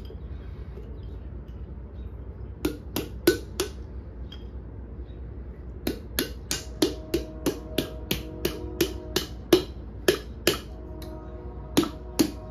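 Open palm slapping down on the finned cylinder head of a 1943 Gravely Model L engine to seat it on the cylinder. Sharp metallic taps, each leaving the casting ringing briefly: a few about three seconds in, then a quick run of a dozen or more from about six seconds, and two more near the end.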